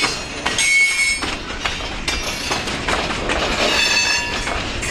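Loaded pulpwood freight cars rolling past, their steel wheels clanking over the rails. High-pitched wheel squeal comes around a second in and again for about a second near the end.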